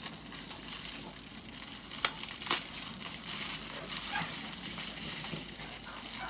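Plastic wrapping crinkling as hands unwrap a small 3D-printed miniature part, with two sharp crackles a little after two seconds in.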